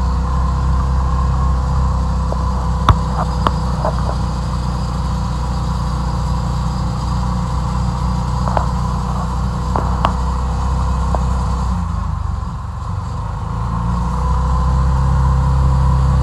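Car engine and road noise while driving: a steady low hum that dips about twelve seconds in and then builds again, with a few sharp clicks.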